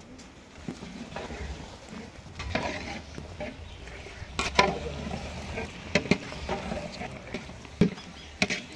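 Wet squelching of marinated mutton pieces being squeezed and turned by hand in a steel pot, with a few sharp knocks scattered through it.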